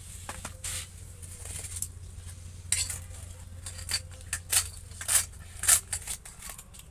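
Steel plates and banana leaves being handled: scattered short clinks and rustles that come more often and louder after the first couple of seconds.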